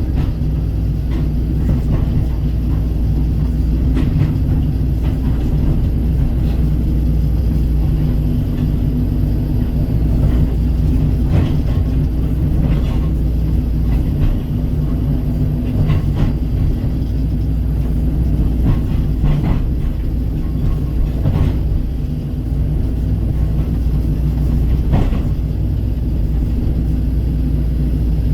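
Kobelco SK135 excavator's diesel engine running steadily under work, with a sharp knock or clank every few seconds.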